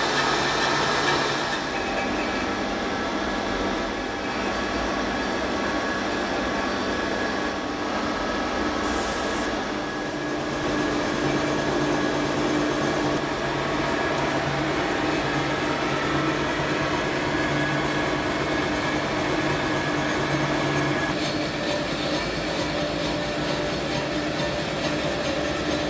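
1950s SIP Hydroptic No 6 jig borer running a face mill at about 130 RPM on a light skim cut across a steel plate: a steady machining noise of spindle drive and inserts cutting steel, with a brief high hiss about nine seconds in.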